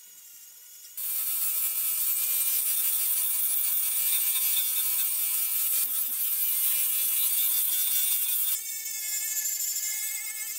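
Cordless angle grinder with a 60-grit flap disc grinding a steel axe head to take off hammer burrs and dents. It starts about a second in as a steady motor whine over a harsh abrasive hiss. Near the end the hiss drops away and it goes somewhat quieter while the motor keeps running.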